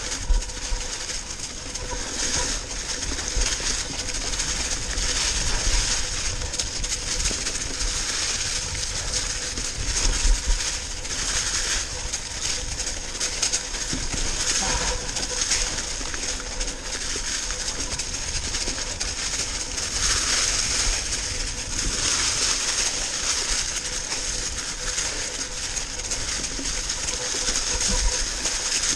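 Mountain bike tyres rolling over a trail thick with dry fallen leaves: a steady crackling rustle, with low rumble and a few knocks from bumps in the trail.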